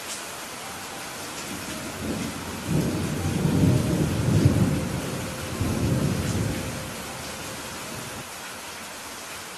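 Steady rain falling, with a long roll of thunder that builds about two seconds in, rumbles for several seconds and fades away.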